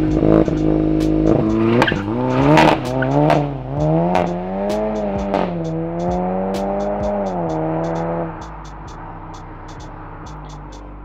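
Seat Leon Cupra 280's turbocharged 2.0-litre four-cylinder, breathing through a non-resonated Scorpion cat-back exhaust, pulling away hard from a standstill. The engine note climbs and drops back at each upshift as the car accelerates, then falls away sharply about eight seconds in.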